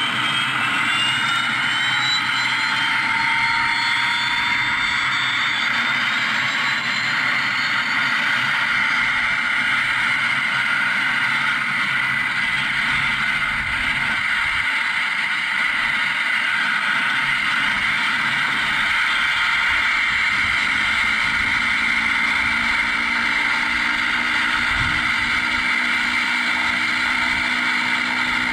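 Mr RC Sound onboard sound system playing a simulated turbine engine start through the model's speaker: a whine rises in pitch over the first several seconds, then settles into a steady idle whine with a low hum beneath.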